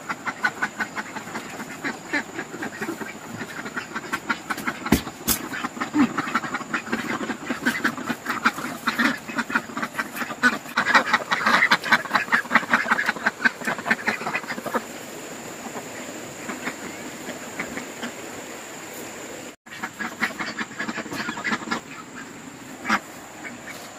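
A flock of domestic ducks quacking in a rapid, overlapping chatter, busiest midway and dying down after about fifteen seconds.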